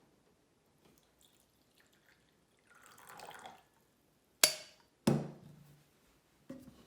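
A brief splash or trickle of water, then two sharp clinks with a short ring, and a softer knock near the end.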